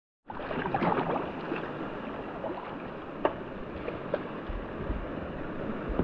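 Whitewater rapid rushing, a steady wash of water with sharp splashes about a second in and again a little past three seconds.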